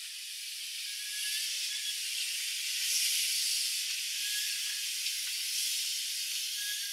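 Steam locomotive venting steam: a steady hiss that grows louder about a second in and holds, with no exhaust beats.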